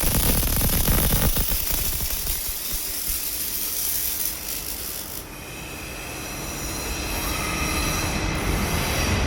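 Robotic welding cell at work: a crackling hiss for about the first five seconds, then a high, steady machine whine of several tones.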